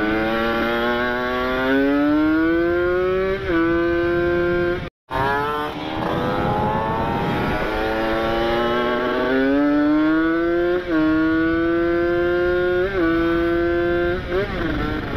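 Kawasaki Ninja RR's two-stroke single-cylinder engine breathing through an ABRT20 aftermarket exhaust as the bike accelerates. Its pitch climbs steadily and then drops sharply at each upshift, several times over. The sound cuts out briefly about five seconds in, and there are a few quick throttle blips near the end.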